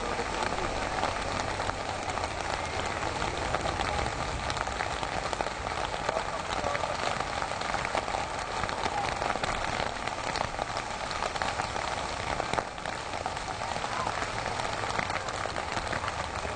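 Steady crackling noise dense with small clicks, with a faint steady tone underneath.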